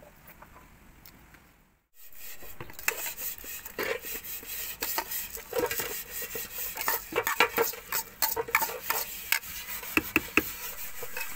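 Metal spoon scraping and tapping chopped chilies off a plastic bowl into a plastic tub of coconut milk, then stirring and clinking in the mixture: a busy run of scrapes and sharp clicks starting about two seconds in.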